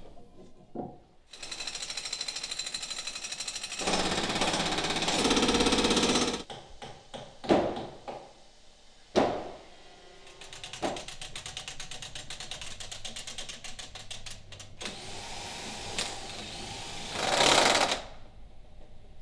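Power-tool work on a wooden boat hull: a rapid, evenly repeating rattling hammer tool in two long stretches, with three sharp knocks between them. Near the end a corded drill bores loudly into a timber overhead.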